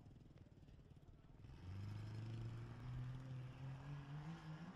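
A Jeep Comanche race truck's engine rumbles low, then about a second and a half in it revs up as the truck pulls away from the start line, its pitch climbing steadily.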